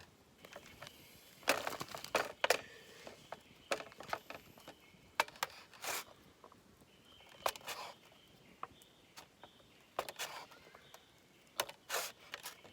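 Irregular rustles and sharp clicks of things being handled, a dozen or so scattered through, over a faint high steady background.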